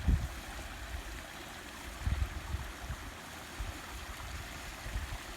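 Water running steadily over a small built waterfall of stacked slate steps, an even rushing splash with a few low thumps underneath.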